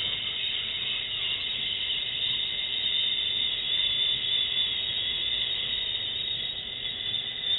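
A long, steady hissing "shhhh" breathed out: the liver sound of the Taoist Six Healing Sounds, held as one slow exhale.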